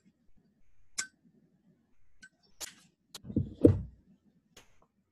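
A few scattered sharp clicks, about one a second, with a dull thump a little past the middle that is the loudest sound.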